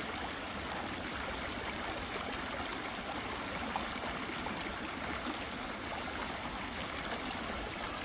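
Shallow forest creek flowing steadily over rocks and a small cascade.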